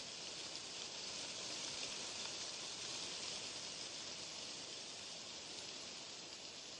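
Steady white-noise hiss, even and without any distinct events, swelling slightly in loudness and easing off again.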